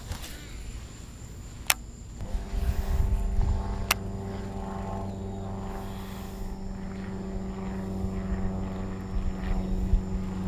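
A steady engine drone comes in about two seconds in and holds at one pitch, with two sharp clicks in the first four seconds.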